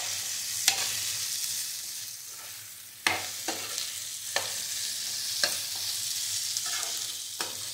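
Soya chunks and capsicum sizzling in a nonstick frying pan with a steady hiss, stirred and tossed with a spatula that scrapes and knocks against the pan several times at irregular intervals.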